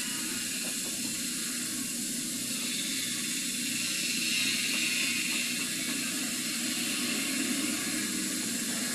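Steady background hiss and low rumble with no distinct events, swelling slightly a few seconds in.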